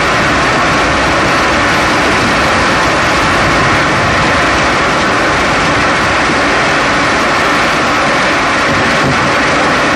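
Steady, loud rush of tyre and road noise from a 2011 Chevrolet Cruze on the move, heard close up from inside the front passenger-side wheel well at the strut. No separate clicks or rattles stand out above it.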